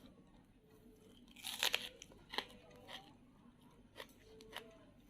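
A person eating, with a loud crunchy bite about a second and a half in, followed by softer chewing crunches at irregular intervals.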